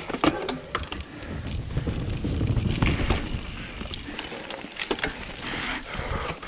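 Mountain bike riding over rough, rooty trail: rapid irregular clicks and rattles from the bike over a low rumble that is loudest around the middle.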